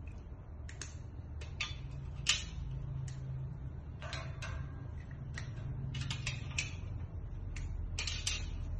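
Irregular light clicks and ticks, about a dozen scattered through, with a louder cluster in the second half, over a low steady hum.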